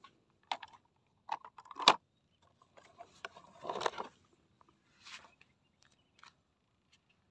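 Hard plastic toy cars clicking and knocking against each other and the plastic basin as they are handled, with one sharp knock about two seconds in, and brief rustling scrapes a little later.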